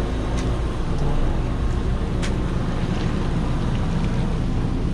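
Fishing boat's engine running steadily, with wind and sea noise over it and a couple of sharp clicks.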